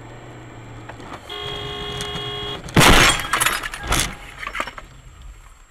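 A car horn sounds for about a second. Then a loud crash comes about three seconds in as the car slides off the road into a snowbank, a second heavy bang follows a second later, and clattering and crunching die away.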